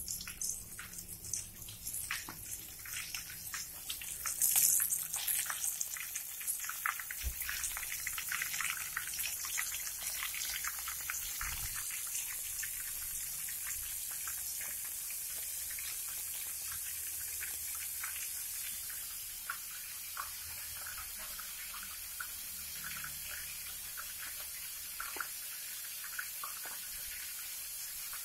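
Floured shrimp deep-frying in hot cooking oil: a sizzling hiss full of crackling pops, loudest about four to five seconds in, then settling into a steadier sizzle.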